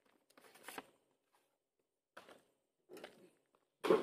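Handling noises from a small cardboard firecracker box: a few short rustles and scrapes, then a louder scrape or knock near the end as the man bends down to set it on the ground.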